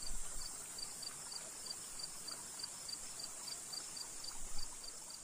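Insects chirping: a regular high chirp about two and a half times a second over a steady high insect hiss. Brief low rumbles come near the start and about four and a half seconds in.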